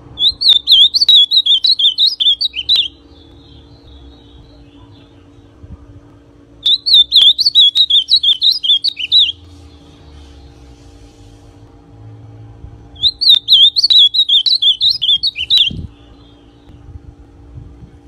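Young male ultramarine grosbeak (azulão), still in brown plumage, singing three song phrases of quick warbled notes, each about two and a half seconds long and several seconds apart.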